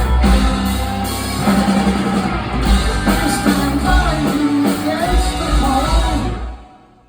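Live rock band playing, with a voice singing over guitars and drums. The music drops away sharply about six and a half seconds in.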